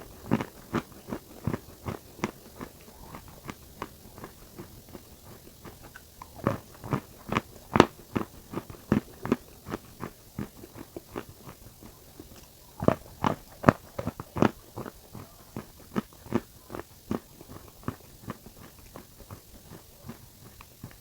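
Close-miked biting and chewing of crunchy red clay cookies: a steady run of sharp cracks and crunches, a few each second, with louder clusters about a third of the way in and again two-thirds in.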